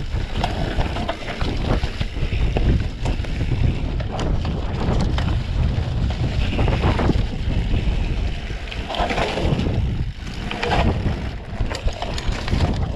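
Wind buffeting the microphone over the rumble and rattle of a mountain bike riding fast down a dirt forest trail, with frequent sharp knocks and clicks as the tyres and frame hit bumps.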